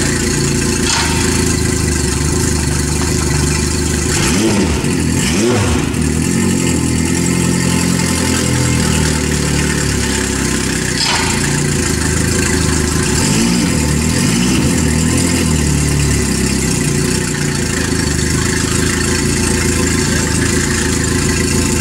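Yamaha 70 hp fuel-injected four-stroke outboard idling in neutral out of the water, its exhaust coming straight out through the propeller, which makes it louder than it runs in the water. The tone wavers briefly a couple of times.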